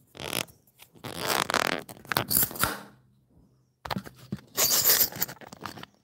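Microphone handling noise: rubbing and scraping right on the microphone while the recording phone is moved and adjusted. There is a short scrape at first, then two longer stretches of scraping with a sudden dead gap of nearly a second between them.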